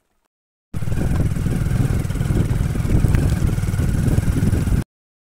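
Motorcycle engine running steadily with a rapid low firing pulse. It cuts in abruptly less than a second in and cuts off abruptly near the end.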